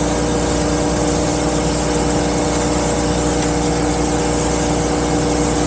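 Mercruiser MPI boat engine running evenly at cruise speed, about 3,500 RPM, over wind and water noise. It holds a steady pitch and level with no bucking or surging, after the anti-siphon valve and fuel line were replaced.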